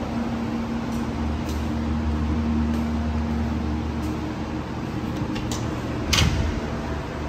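Steady low mechanical hum of building ventilation, with a steady higher tone that stops about four seconds in. A few light clicks, and a louder clack like a door about six seconds in.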